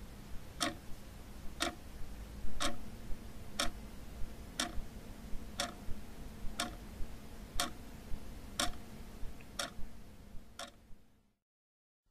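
A clock ticking about once a second, ten even ticks over a faint low hum. The ticking stops about a second before the end.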